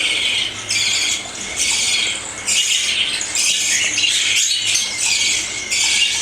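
Young cockatiels giving harsh, rasping food-begging calls while being syringe-fed: a steady run of short hissy bursts, one after another.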